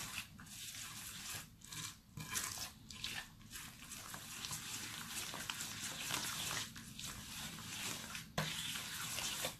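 A hand kneading and smearing a soft, greasy butter-and-oil dough against a ceramic plate: irregular wet squishing and rubbing strokes.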